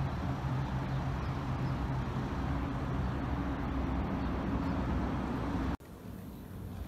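Steady vehicle engine hum with road noise, which cuts off abruptly near the end to a quieter background.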